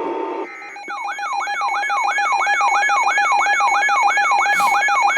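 Electronic emergency alert tone on a broadcast: a siren-like wail that sweeps up and down about three times a second over a steady tone, starting about a second in after a short beep. It opens the next flash flood warning.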